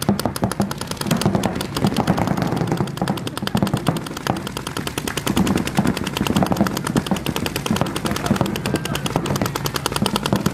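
Paintball markers firing rapid strings of shots in a speedball game, a continuous fast rattle of many pops a second.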